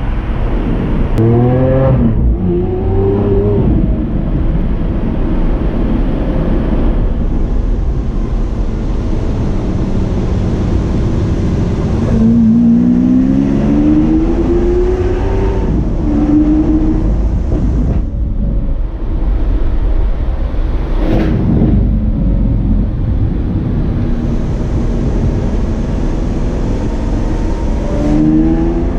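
Lamborghini Aventador S Roadster's V12 engine under way over a steady low drone of engine and road noise. It pulls up through the revs with rising pitch about two seconds in, again for a few seconds in the middle, and near the end. There is one short sharp crack about two-thirds of the way through.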